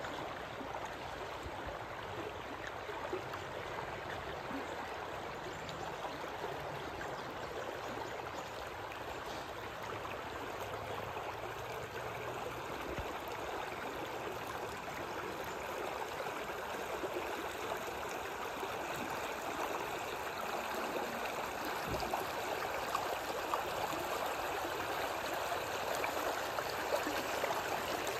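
River water flowing steadily over a low wall of piled river stones just below the surface. It grows slightly louder toward the end.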